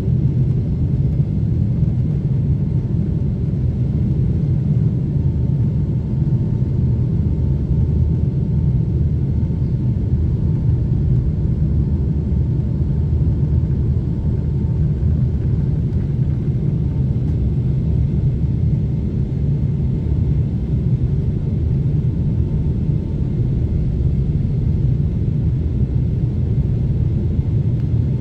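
Steady low rumble of a Boeing 777-300ER's GE90 turbofan engines at low thrust, heard inside the cabin while the airliner taxis, with a faint steady whine above it.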